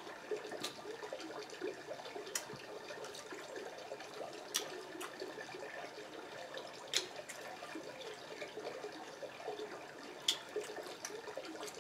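A person eating seafood boil by hand: faint wet chewing and mouth sounds, with five sharp smacks or clicks spread through.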